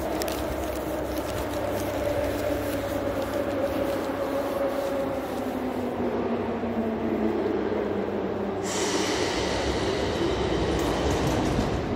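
An 81-540.2 metro train pulling into a station, its motor whine falling slowly in pitch as it slows. A steady hiss starts suddenly about three-quarters of the way through as it comes to a stop.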